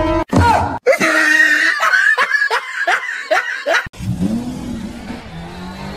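Laughter in short repeated bursts for about three seconds. About four seconds in, after a cut, a car engine sound that rises, dips and settles into a steady tone.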